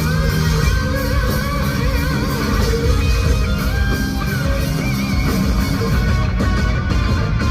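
Live rock band playing an instrumental passage, with electric guitar carrying a melody over bass and drums, loud through the venue's sound system.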